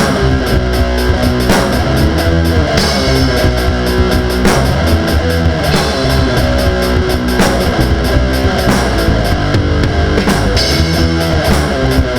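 Heavy rock music with distorted electric guitar and a driving drum kit beat.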